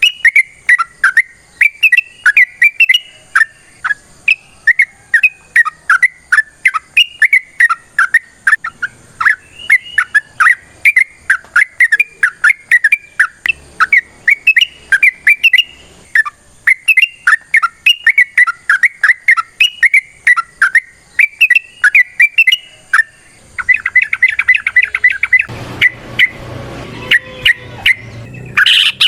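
Yellow-vented bulbul (trucukan) singing a long run of rapid, bubbling chirping phrases, several short notes a second. Near the end the notes come in a faster, denser run and a rougher noise joins them.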